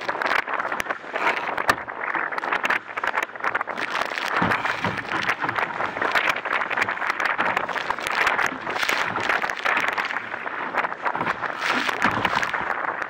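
Water rushing and splashing against a sailing dinghy's hull as it sails through chop, a surging hiss that swells and falls unevenly, with many small spattering ticks of spray.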